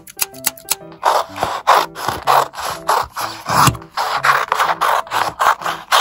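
Quick rubbing strokes on paper, about three a second, starting about a second in, over light background music.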